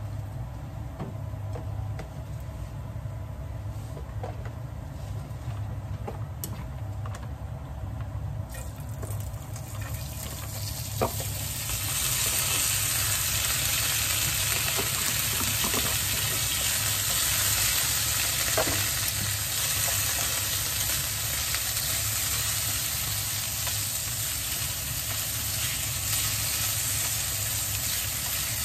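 Food sizzling in a hot frying pan. The sizzle builds up about a third of the way in and then holds steady, with a few light clicks and knocks of utensils against the pan. A low steady hum runs underneath throughout.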